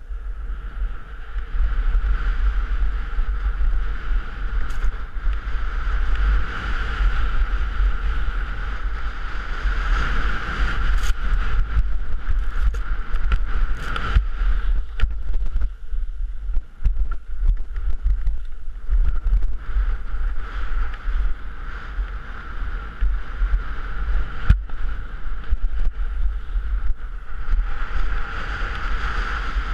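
Wind buffeting the microphone of a head-mounted action camera during a downhill ski run, a loud steady low rumble, with skis scraping over packed snow and a few sharp clicks.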